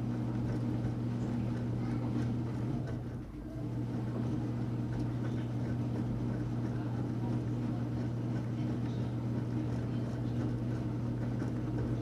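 Enxuta Luxo Soft washing machine running mid-wash, its motor giving a steady low hum that dips briefly about three seconds in.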